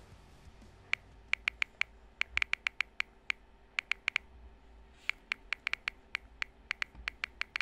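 Smartphone on-screen keyboard clicking as text is typed: quick, irregular key-press clicks in two runs, with a short pause a little past the middle.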